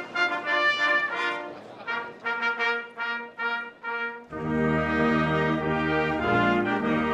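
Brass fanfare music: short, separated high brass notes, then about four seconds in a fuller brass section with low notes comes in on sustained chords.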